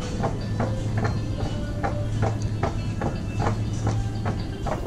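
Footsteps at a walking pace, about two and a half clicks a second, and a wheeled shopping basket pushed over a tiled supermarket floor, over a steady low hum.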